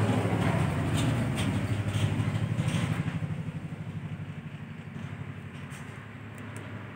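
An engine running steadily with a low, pulsing hum, louder for the first three seconds and then fading.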